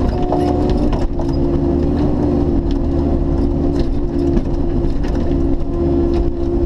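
Bobcat E50 mini excavator's diesel engine running steadily under hydraulic load, heard from the cab, with a steady whine over the drone. The ripper tooth is working a stump, and scattered sharp clicks and cracks sound over it.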